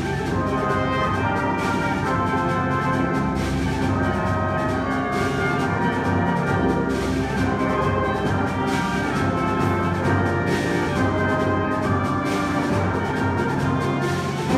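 School concert band of woodwinds, brass and percussion playing a piece live, with held brass and woodwind chords and percussion strokes about every two seconds.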